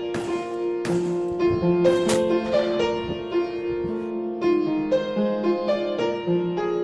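Instrumental music, a piano-like keyboard playing a melody, with a few sharp percussion hits in the first two seconds.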